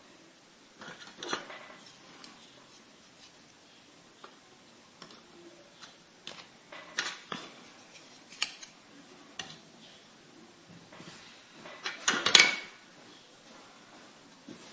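Small toy building pieces being handled and set down, making scattered clicks and clatters, with a louder clatter about twelve seconds in.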